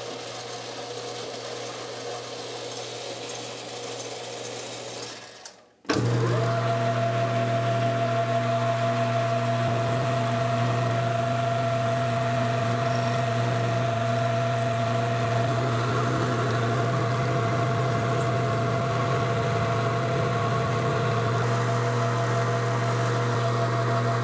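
Metal lathe running steadily with a low motor hum and a faint higher whine. The sound drops out almost completely about six seconds in, then comes back louder and steady.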